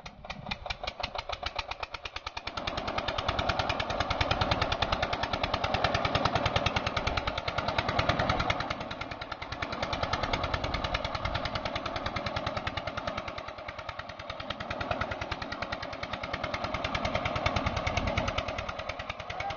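Small diesel engine driving a farm water pump, just started and puffing black smoke, running with a rapid, even knocking beat. It picks up over the first few seconds, then runs on with its loudness swelling and dipping.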